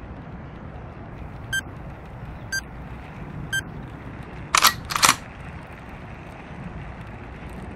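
Three short electronic beeps exactly a second apart, then two loud sharp clicks about half a second apart, over a steady low outdoor background hum.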